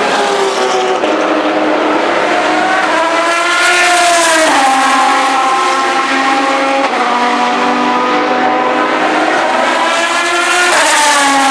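Aston Martin DBR9 GT1 race car's V12 engine running hard. Its pitch climbs, then drops sharply at gear changes about four and a half and seven seconds in, and rises steeply again near the end.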